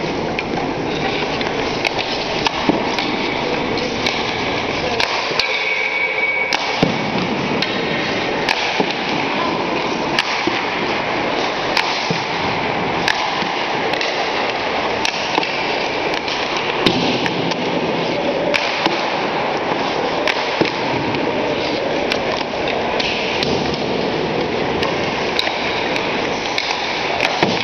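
Ice hockey shooting drill: sharp, irregular cracks of sticks hitting pucks and pucks striking the goalie's pads, the boards and the ice, over a steady rink hubbub with distant players' voices.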